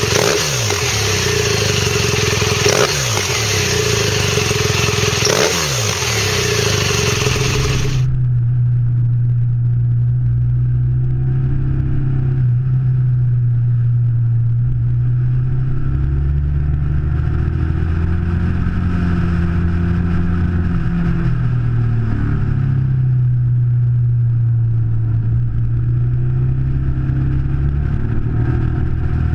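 BMW R1200RT boxer twin through an Akrapovič silencer, revved in about three blips with the revs falling back after each. About a third of the way through, it changes to the bike running under way on the road, its engine note holding steady and then stepping up and down with throttle and gear changes.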